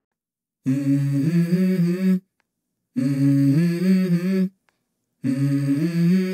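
Intro of a song: a wordless hummed vocal melody, unaccompanied, in three short phrases that step between notes, separated by brief pauses.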